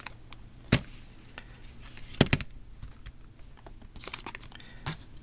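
Handling noise of small objects on a work surface: scattered clicks and knocks, the loudest a quick pair about two seconds in.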